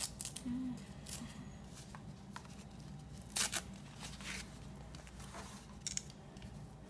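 Handling noise from a plastic fashion doll and its cloth clothes: several short rustles and scrapes, the loudest about three and a half seconds in.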